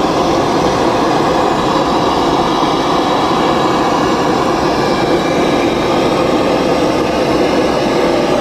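Steady, loud roar of a high-pressure gas burner under a cooking pot, holding the same level throughout.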